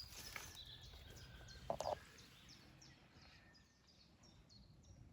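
A small bird singing in the background, a steady run of short, high falling notes at about two a second, with one brief louder sound a little under two seconds in.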